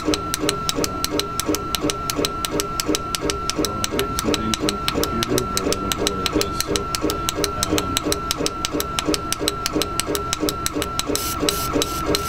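K40 laser cutter's gantry stepper motors raster-engraving, the head sweeping back and forth with a regular clicking about five times a second over a steady high tone.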